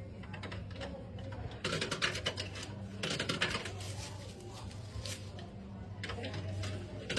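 Tokens being fed into a capsule vending machine's coin mechanism: four or so bouts of quick clicking and rattling, over a steady low hum.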